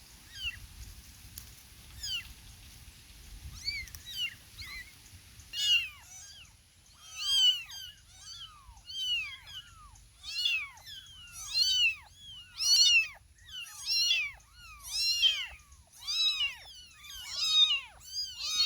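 Kittens meowing: faint, thin mews for the first few seconds, then from about six seconds in a loud meow repeated roughly once a second, each one rising and falling in pitch.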